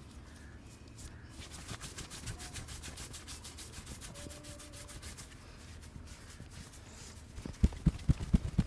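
Hands rubbing briskly in a head and neck massage, with quick repeated rubbing strokes. About a second from the end, a fast run of loud, dull thumps starts.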